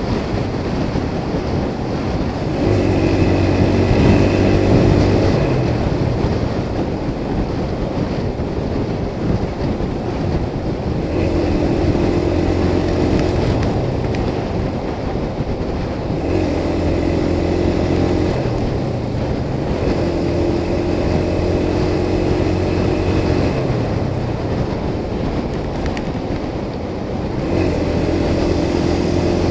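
Motorcycle riding at highway speed: a constant rush of wind and road noise, with the engine's steady-pitched hum coming in for a few seconds at a time, about five times.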